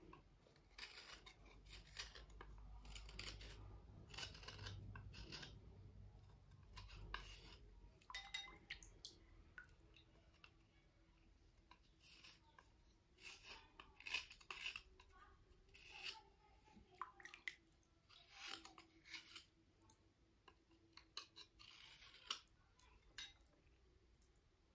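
Slate cubes being rubbed and scraped as they are cleaned: a series of short, dry, scratchy strokes that come at irregular intervals, some in quick pairs.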